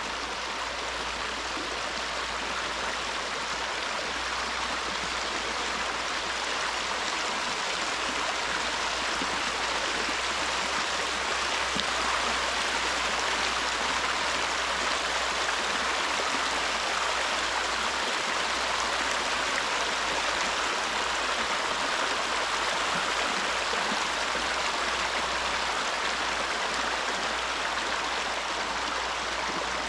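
A small stream's water flowing steadily, an even rushing hiss with no breaks.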